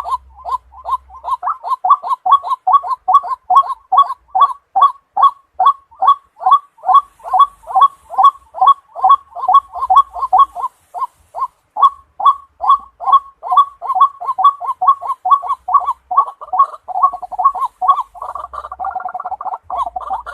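White-breasted waterhen calls played as a lure (trap) call: a loud, even series of short, repeated notes, about three a second, turning into a faster, rougher chatter near the end.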